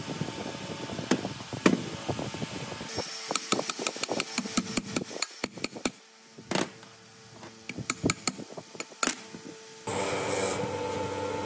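Metal parts of a rusted bearing housing and shaft knocking and clinking on a steel bench, with a quick run of sharp clicks a few seconds in. Near the end a spinning wire wheel starts scrubbing rust off the bearing housing with a steady rasping noise.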